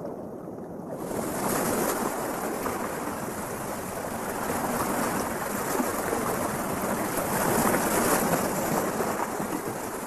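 Water splashing and churning as an osprey beats its wings against the lake surface, rowing ashore with a fish too heavy to lift. The sound is muffled for about the first second, then rough, continuous splashing.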